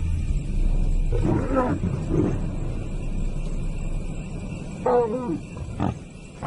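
Lions growling in two bouts, about a second in and again about five seconds in. This is a dominant male lion asserting himself over younger males at a kill.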